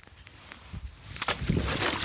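Long-handled ice chisel knocking and scraping at the edges of a hole cut through thick lake ice, with water sloshing in the hole. Quiet at first, then a run of knocks and scrapes from about a second in.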